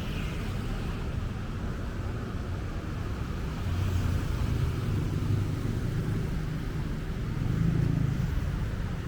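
City road traffic: a steady low rumble of car engines and tyres, swelling twice as vehicles pass, about four seconds in and again near the end.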